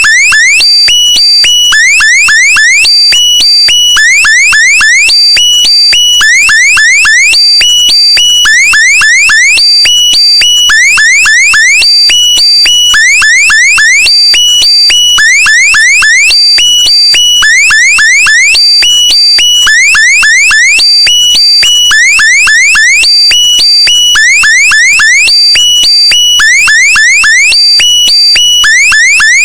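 Electronic alarm sound effect, loud and unchanging: repeated groups of quick rising chirps, a group about every second and a half, over steady high pulsing tones.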